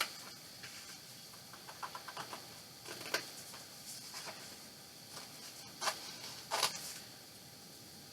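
Scissors cutting out a stiffened paper-and-canvas tag: a run of small ticks about two seconds in, then three sharper snips spread through the next five seconds, with light paper rustling.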